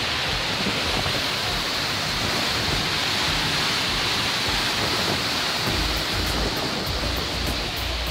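Steady roar of the Iguazú Falls: a dense rush of falling water and spray. Music begins to come in faintly under it near the end.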